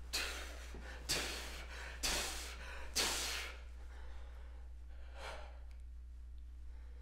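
A person breathing out hard in four sharp, breathy puffs about a second apart, each fading quickly, then a fainter one about five seconds in.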